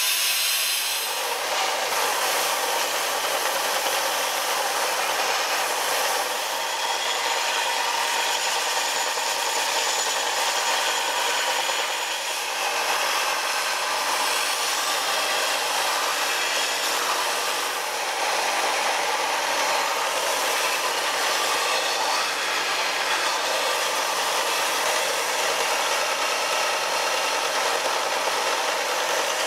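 Bench belt grinder running steadily while a steel bowie knife blade is pressed against the moving abrasive belt and ground, throwing sparks: a continuous grinding noise. In the first second or so, an angle grinder grinding the blade in a vise.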